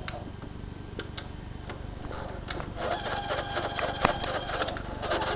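Open Sanyo VHR 2250 VCR's tape mechanism running with a cassette loaded: a few scattered clicks, then from about halfway a fast, dense mechanical rattle and whir.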